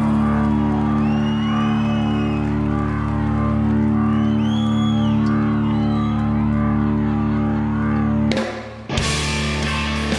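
Rock band playing live: a long held, swirling chord with a few high sliding notes over it, then a brief break about eight and a half seconds in before the full band with drums comes back in.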